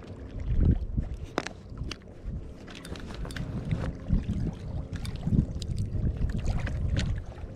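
Wind buffeting the microphone in uneven gusts, a low rumble that swells and eases, with faint scattered clicks over it.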